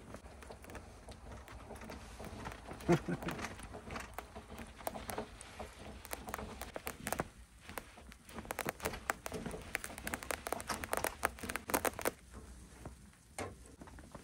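Footsteps crunching in snow: a run of irregular crisp crunches and clicks, thickest in the second half.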